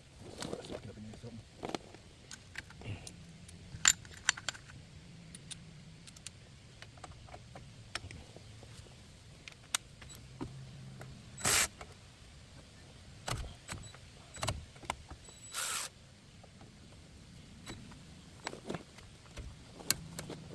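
Metal hand tools and brake hardware clinking and clanking at irregular intervals, with two short rasping bursts around the middle.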